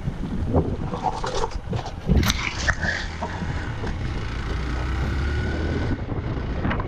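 Hero Xpulse 200 dual-sport motorcycle's single-cylinder engine running steadily as it rides a rough dirt trail, with wind buffeting the microphone. Sharp knocks and rattles in the first couple of seconds as the bike jolts over the bumps.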